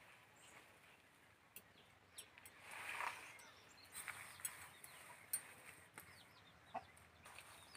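Faint outdoor ambience of bird calls: a soft call about three seconds in, then a run of short chirps. A few faint clicks are scattered through.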